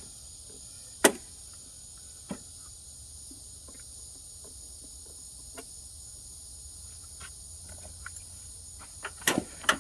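Sharp plastic clicks and knocks of a replacement switch being handled and fitted into a riding mower: one loud click about a second in, a smaller one soon after, scattered faint ticks, and a quick cluster of clicks near the end. Steady high cricket chirring runs underneath.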